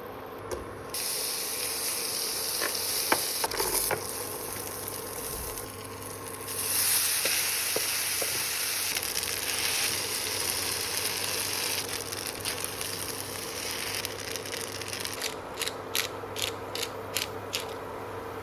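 Food sizzling in a hot pan, the sizzle growing louder about a third of the way through. Sharp metal clinks of a utensil against the pan come a few seconds in and again as a quick run near the end.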